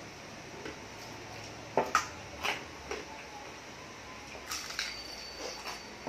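Mukbang eating sounds: crispy pata (deep-fried pork leg) being pulled apart by hand and chewed, a run of sharp clicks and crackles with the two loudest close together about two seconds in.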